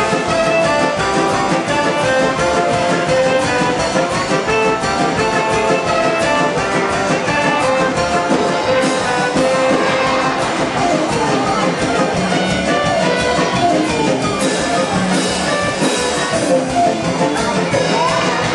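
Instrumental music, played continuously at a steady loud level.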